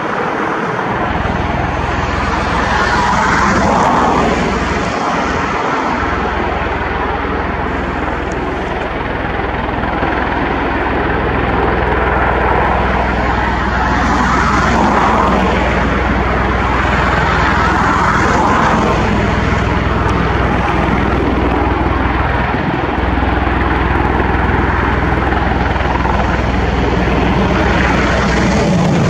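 Bell Boeing CV-22 Osprey tiltrotor hovering with its proprotors tilted upright: loud, steady rotor and turboshaft engine noise over a deep low hum, swelling and easing every few seconds.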